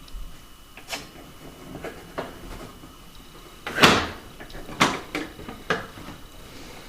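Dishwasher being handled: a string of sharp knocks and clatters, like racks, door or dishes being moved, with the loudest knock about four seconds in.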